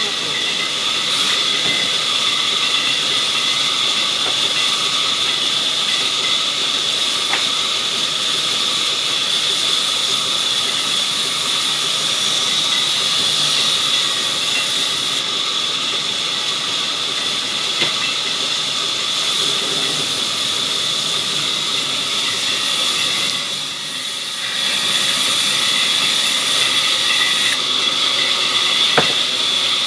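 Sawmill saw running steadily, a high whine over a hissing noise. It dips briefly about three-quarters of the way in, and there are two sharp clicks, one near the end.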